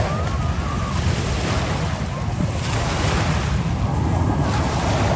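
Wind buffeting the microphone, a steady rumbling noise that may be mixed with lake surf.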